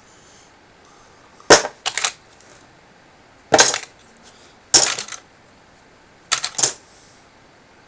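Memory modules (RAM sticks) tossed one after another onto a pile of other RAM sticks, clattering four times, each time a sharp hit followed by a few quick rattles as they settle.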